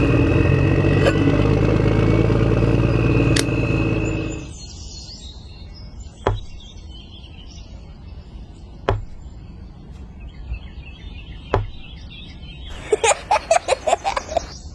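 A small motor running steadily, then cutting off about four seconds in. After it stops come three single sharp knocks a couple of seconds apart, then a quick run of clicks near the end.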